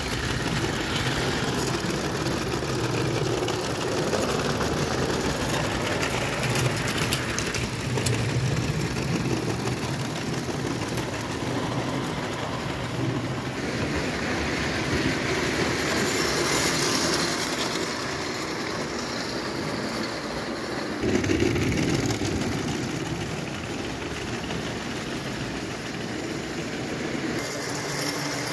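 0 gauge tinplate model trains, among them a spirit-fired Bing live steam locomotive, running on metal track: a steady rattle of wheels on the rails, swelling briefly a little after three-quarters through.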